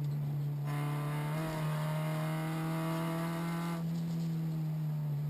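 Renault Clio RS rally car's four-cylinder engine heard from inside the cabin, pulling hard under throttle with its pitch climbing steadily, then lifting off about a second and a half before the end.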